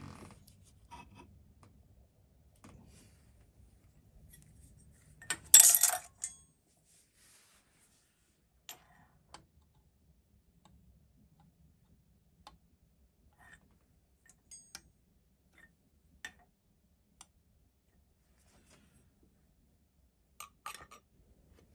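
Metal parts and tools handled on a steel milling machine table: scattered light clicks and taps, with one louder metallic clatter about five and a half seconds in.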